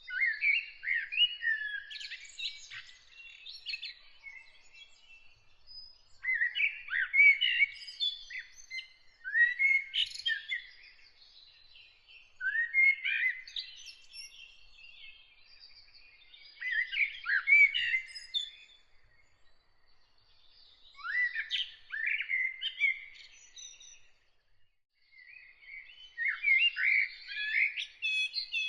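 A songbird singing in separate warbling phrases of about two seconds each, a new phrase every three to four seconds.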